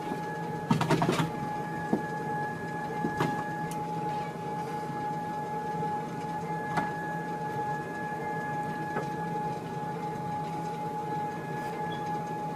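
Electric treadmill running, its motor giving a steady whine over a low belt hum. A few light knocks and taps, the loudest cluster about a second in.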